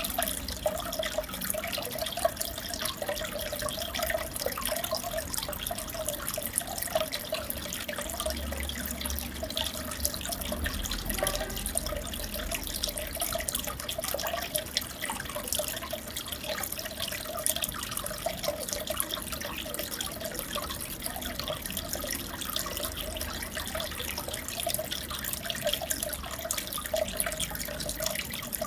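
Aquarium water trickling and bubbling steadily, with many small drips and splashes.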